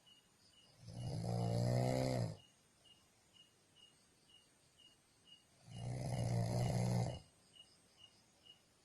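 A sleeping person snoring: two long snores about five seconds apart, each lasting about a second and a half with a low buzzing pitch.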